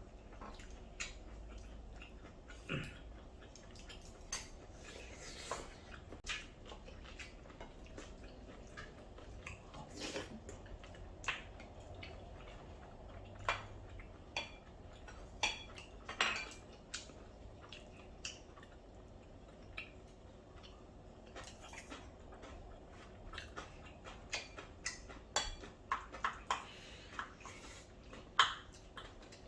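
Cutlery clinking and scraping on plates and bowls during a meal of curry rice, in many short, irregular knocks. The loudest comes near the end.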